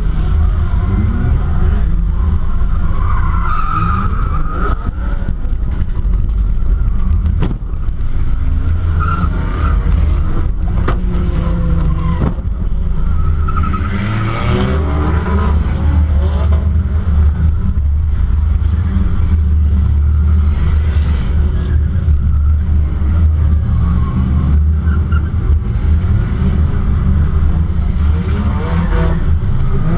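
Race cars' engines running and revving around a track, pitch rising and falling, with tyre squeal and a few sharp knocks.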